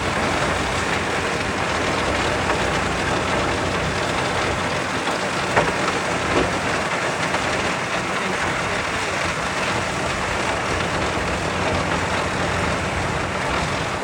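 A large wood chipper's big diesel engine running hard, with a dense, steady rush of noise. Two short sharp knocks come about five and a half and six and a half seconds in.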